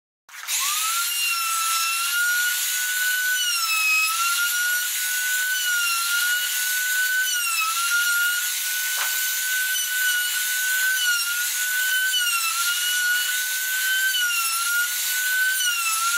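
Compact trim router with a bearing-guided roundover bit starting up with a quickly rising whine, then running at high speed as it rounds over the edge of a pine board. The pitch dips briefly every couple of seconds as the bit bites into the wood.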